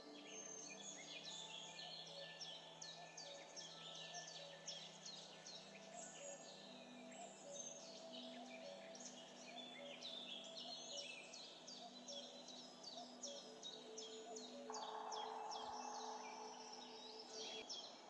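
Many small birds chirping continuously, quick falling chirps several a second, over soft sustained tones like a calm background track.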